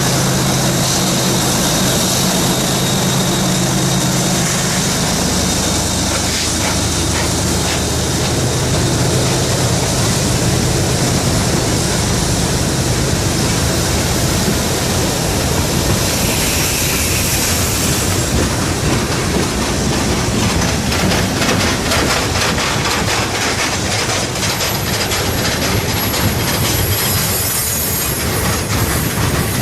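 A train passing close by. The locomotives' diesel engines hum steadily in the first few seconds, then the cars rumble past with a rapid run of wheel clicks over the rail joints from about midway, and a faint high wheel squeal near the end.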